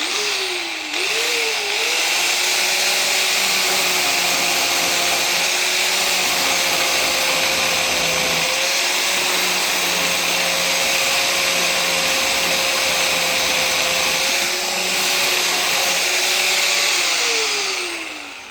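Angle grinder sanding down the edge of an exterior door so it clears the frame: a steady motor whine over a harsh grinding hiss, the pitch falling as it winds down near the end.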